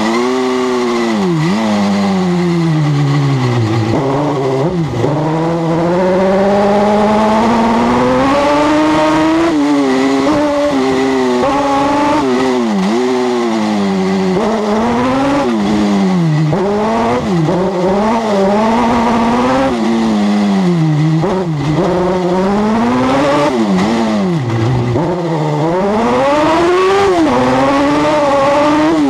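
Super buggy's engine racing on dirt, heard close from on board: the pitch climbs hard over a few seconds, drops sharply at each gear change or lift into a corner, then climbs again, over and over.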